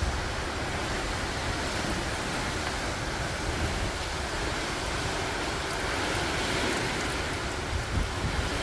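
Typhoon wind and heavy rain: a steady rushing hiss with a low, buffeting rumble underneath.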